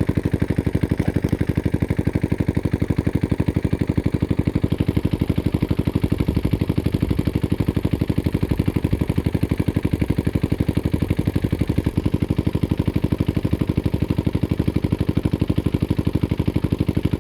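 A small engine running steadily at an even speed, with a rapid, regular pulsing beat.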